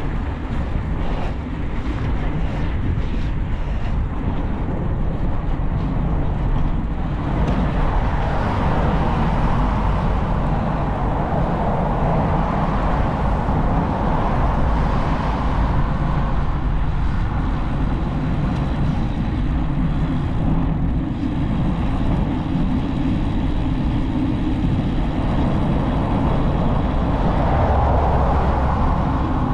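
Steady wind rushing and rumbling over a bicycle-mounted camera's microphone while riding, with cars passing close by, one near the end.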